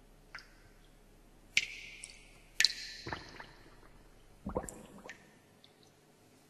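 Electroacoustic stage sounds: a sparse, irregular string of sudden plinks and drip-like plops with short ringing tails, about six in all. A couple of them slide down in pitch, and the loudest comes near the middle.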